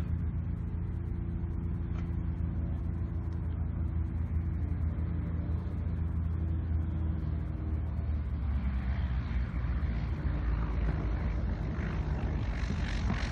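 Light single-engine propeller airplane on final approach to land. Its engine drone runs steadily, then grows louder and brighter over the last few seconds as the plane comes in low over the runway.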